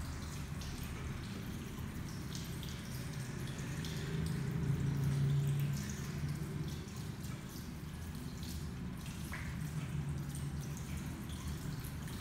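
Water splashing and dripping in a washbasin as hands are rubbed and rinsed at the tap, many small splashes and drips. A low steady hum runs underneath, swelling for a couple of seconds about a third of the way in.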